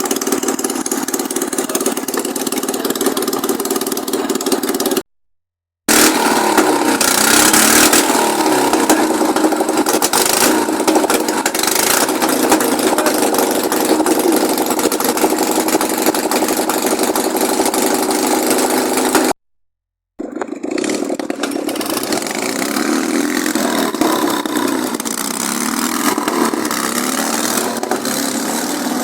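A Ural's engine running and being revved, misfiring and sputtering: the owner says it runs rough, "sneezes" and won't pull away. The sound cuts to silence abruptly twice, for under a second each time.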